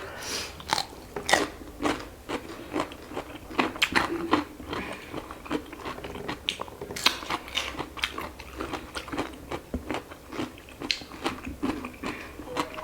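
Close-miked eating of chicken curry with rice: chewing and biting, with many short, irregular wet clicks and smacks from the mouth.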